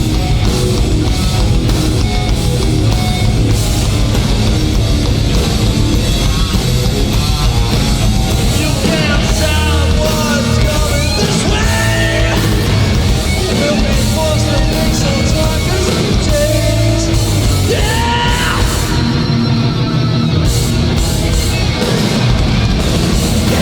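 Live hardcore punk band playing loud and steady, distorted guitars and drums throughout, with shouted vocals coming in about nine seconds in and again near eighteen seconds.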